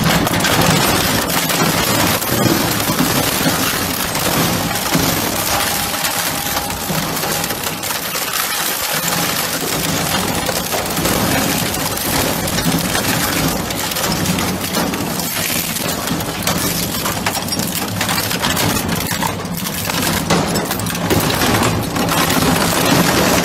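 Twin-shaft industrial shredder chewing through a seat frame and a bicycle: continuous crunching, cracking and snapping of metal and plastic between the cutter discs, over a steady low hum from the machine's drive.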